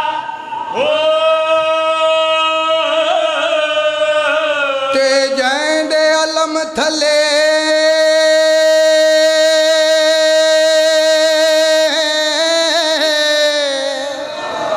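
A male voice sings a devotional song through microphones, holding long high notes with a slight waver. About seven seconds in, one note is held for roughly seven seconds before it fades near the end.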